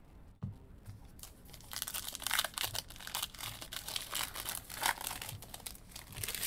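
Foil wrapper of a football trading-card pack being torn open and crinkled by hand: a dense, crackly rustling that starts a little under two seconds in, with two louder rips.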